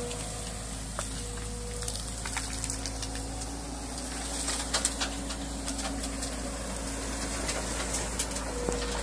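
JCB tracked excavator's diesel engine running steadily, with a cluster of clattering knocks about four to five seconds in as river stones tip from its bucket into a dump truck's steel body.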